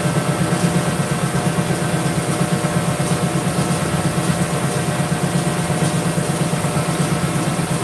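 Hydraulic press's electric motor-driven pump running steadily: a low hum with a fast, even pulse.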